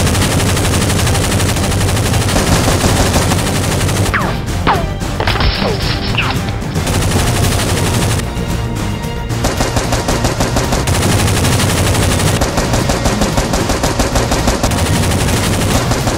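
Rapid automatic-gunfire sound effects, a dense continuous rattle of shots, laid over toy-blaster shooting. A few short falling whistles come about four to six seconds in.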